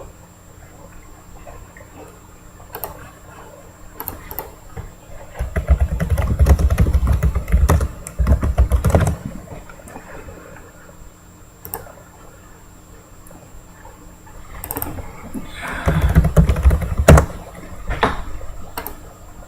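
Typing on a computer keyboard in scattered clicks, with two louder spells of handling noise and clatter, about six seconds in and again a little after fifteen seconds.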